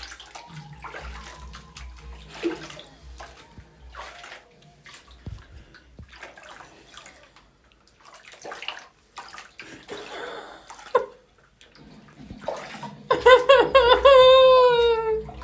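Water sloshing and splashing in a plugged, filled bathroom sink as a man washes his hair in it by hand, in scattered soft splashes and knocks. Near the end, a loud drawn-out voice falls in pitch.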